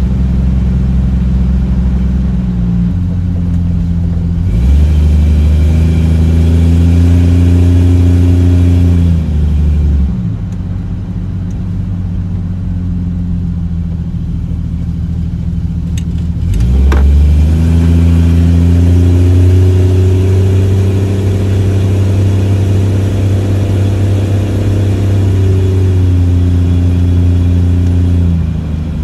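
A 1994 Jeep Wrangler YJ's engine, heard from inside the cab while driving, running with its old crankshaft position sensor back in. The revs climb and are held twice, about four seconds in and again after a sharp click about halfway, and ease off in between and near the end.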